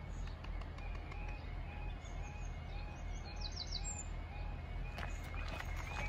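Level crossing warning alarm sounding a regular repeating two-pitched tone pattern, a few cycles a second. Birds chirp over it, with a quick descending trill a little past halfway.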